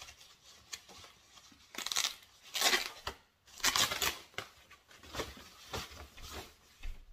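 Clear plastic bag crinkling and rustling as it is pulled and crumpled off stroller wheels, in irregular bursts, the loudest a little over two to four seconds in.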